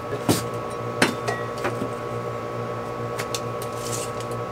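A few sharp clicks and knocks from handling a pencil and a steel tape measure on foam boards. The two loudest come in the first second, with lighter ticks after, over a steady hum.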